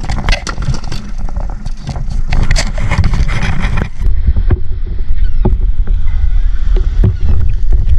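Loud, rumbling wind and water noise around a small boat at sea, with scattered knocks and clicks. The sound changes abruptly about four seconds in.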